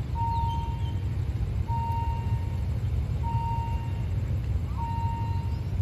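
Railway level-crossing warning alarm sounding for an approaching train: a steady electronic beep, repeating about every second and a half, over a steady low rumble.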